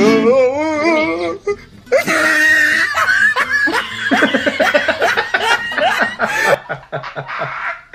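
A brief wavering voice, then people laughing hard in rapid fits from about two seconds in, trailing off near the end.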